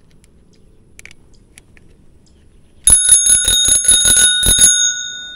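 A newly mounted handlebar bicycle bell is rung rapidly, about ten strikes over two seconds, beginning about three seconds in. Its ring then dies away. A few faint clicks come before it.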